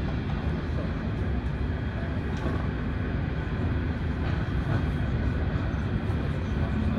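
Steady low rumble inside the cabin of a Boeing 737-800, its CFM56-7B engines running at idle while the jet moves up to the gate.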